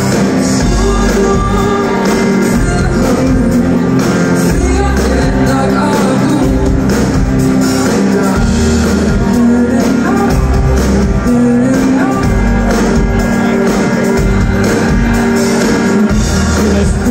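Live pop band music: a woman singing over grand piano, electric guitar and drums, with a steady beat, heard from among the audience in a large hall.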